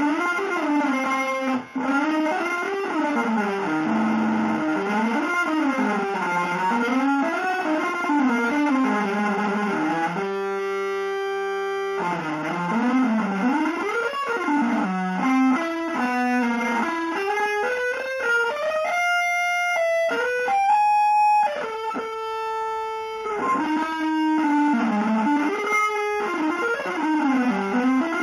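Electric guitar playing fast, flowing runs that sweep up and down. About ten seconds in it holds one note for a couple of seconds, and past the middle it plays a few long held notes stepping upward before the quick runs return.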